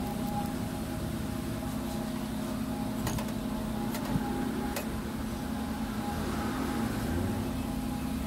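A steady mechanical hum, with three short sharp clicks about three, four and five seconds in.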